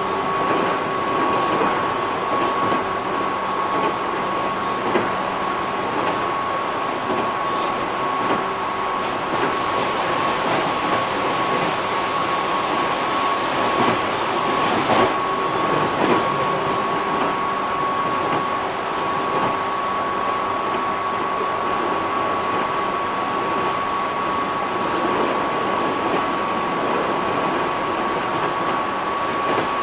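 Onboard running sound of a JR 205 series 600 subseries electric train: a steady rumble of wheels on rail with a whine held at one steady pitch, the train cruising at a constant speed.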